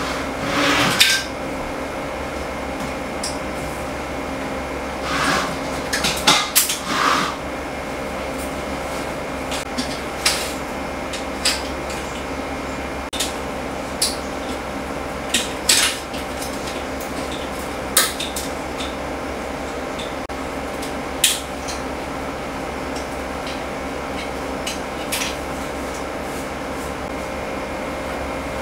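Precision screwdriver and rusty metal model-aircraft parts clinking and scraping against a stainless steel tray: irregular sharp metallic clicks, busier near the start and about six seconds in, over a steady background hum.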